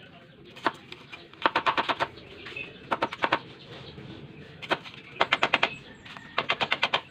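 A broad-bladed kitchen knife chopping a red onion on a wooden cutting board. It comes in several quick bursts of sharp knocks, up to about seven in a row, with single strokes between the bursts.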